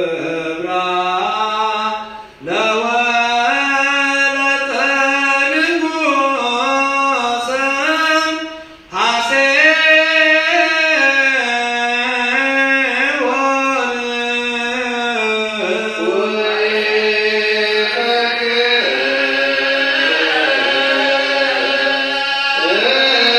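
A voice chanting the Ge'ez Misbak psalm verse in Ethiopian Orthodox zema, slow and melismatic, gliding between long held notes. It breaks off briefly about two and nine seconds in.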